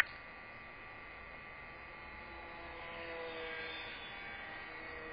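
Faint whine of a small RC plane's electric motor and propeller in flight, swelling slightly in the middle, over a steady electrical hum. A single sharp click right at the start.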